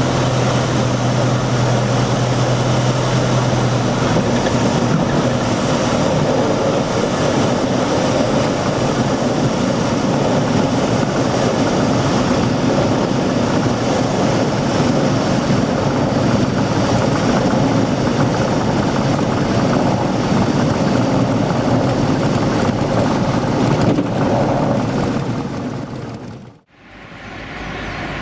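Single-engine propeller aircraft's piston engine and propeller running steadily at high power, mixed with rushing air, heard from the cockpit as it rolls along a runway. The sound fades out near the end and gives way to a quieter steady background.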